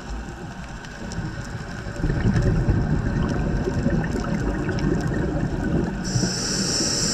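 Scuba diver breathing through a regulator underwater: a bubbling rumble of exhaled air from about two seconds in, then a short hiss of the next breath drawn in near the end.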